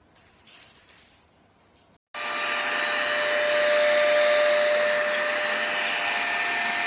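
KV 01 Kurumi UV dust-mite vacuum cleaner running at full power, a steady loud rush of air with a high whine, cutting in abruptly about two seconds in after a brief faint rustle.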